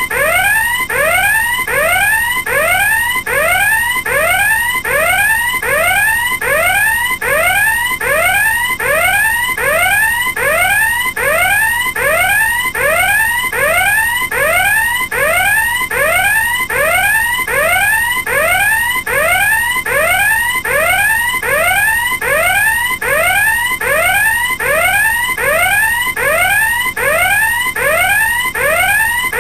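Electronic alarm sounding a loud, repeating rising tone: each short upward sweep in pitch restarts at once, over and over at an even, fast rate without a break.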